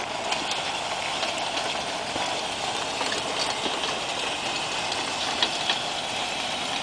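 A steel drag harrow pulled over sandy ground, its tines and chains scraping and rattling steadily, with a few sharp clinks.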